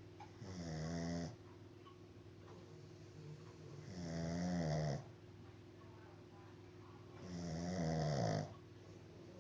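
A sleeping pet snoring: three long, buzzing snores, each about a second long and about three and a half seconds apart.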